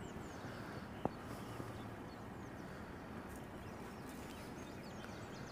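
Quiet rural outdoor ambience: small birds chirping faintly and intermittently over a steady low hiss, with one soft sharp knock about a second in.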